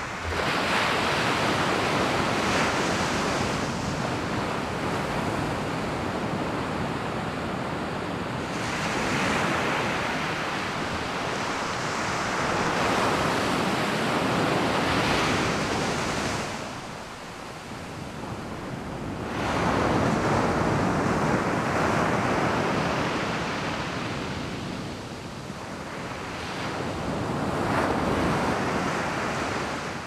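Small sea waves breaking and washing up a sandy beach, the surf swelling and easing every few seconds.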